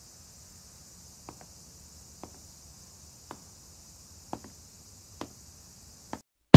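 Slow, soft footsteps, about one a second, over a steady high insect-like hiss; all of it cuts off near the end.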